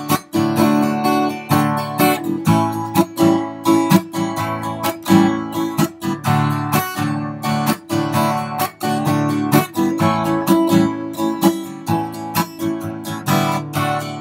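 Acoustic guitar strummed in a steady rhythm, chords ringing between the strokes, with no voice.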